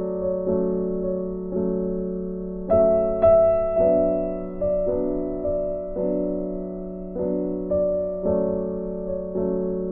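Background piano music: slow, gentle chords struck about once a second, each left to ring and fade.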